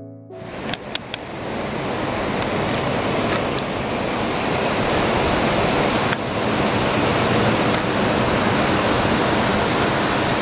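A steady rushing wash of noise, like surf or a waterfall, with a few sharp clicks about a second in.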